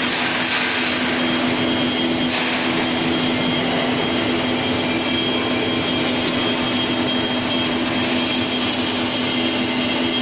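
Screw oil expeller running while pressing sunflower seeds: a steady mechanical drone with a low hum and a thin high whine. There are a couple of brief knocks, about half a second and two seconds in.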